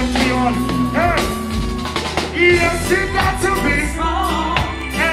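Male singer singing live over a reggae band's bass and drums.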